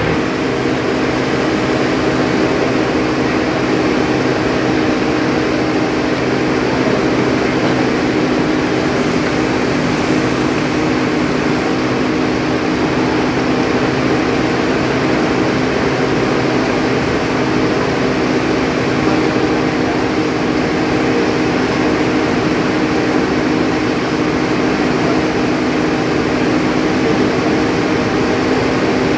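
Heavy engine of a mobile crane running steadily while it holds a lifted rail car. It is a constant drone with a steady hum and does not change through the lift.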